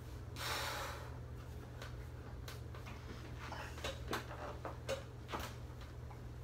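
A lifter's sharp breath about half a second in during a barbell bench-press rep, then scattered light clicks and knocks, over a steady low hum.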